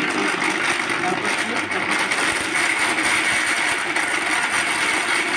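Philips 750 W mixer grinder running steadily on speed 1, its small stainless steel jar grinding whole dried turmeric into powder.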